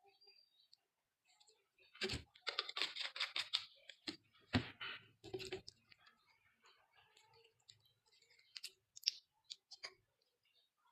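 Slime being squished and worked by hand, a run of quick sticky clicks and crackles, densest a couple of seconds in and thinning to scattered pops near the end.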